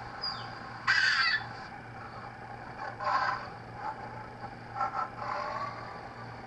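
A dog giving several short, high yowling calls, the loudest about a second in, over a steady low hum.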